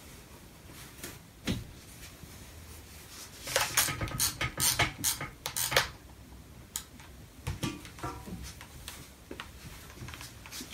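Handling noise of seams being pressed with a steam iron on an ironing board: canvas fabric rustling over a tailor's ham, with a knock about a second and a half in and a dense run of sharp clicks and rustles in the middle.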